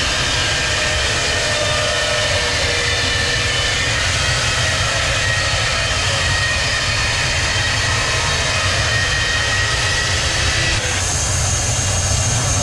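Sawmill machinery running: a steady, loud mechanical din with a low rumble and high whining tones. The sound shifts abruptly about 11 seconds in.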